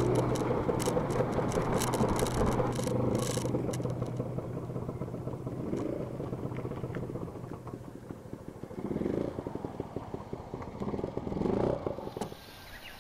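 Fuji Rabbit scooter's small engine running with road and wind noise, heard from the rear rack, getting quieter as the ride slows, with a few short swells in pitch in the second half.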